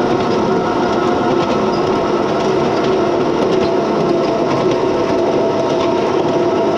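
7¼-inch gauge miniature mining locomotive running steadily along the track, its drive giving a steady whine over the rapid rattle of the running gear on the rails.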